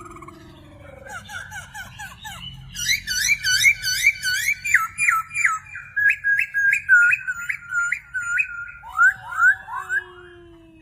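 Pet parrot calling: a long run of quick, repeated whistled chirps, several a second, with a few lower falling notes near the end.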